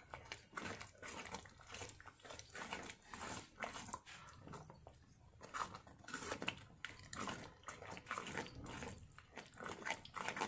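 Thick mustard-greens saag, thickened with maize flour, being stirred and mashed with a metal ladle in a stainless-steel pan. Faint, irregular wet squelching and scraping strokes keep coming.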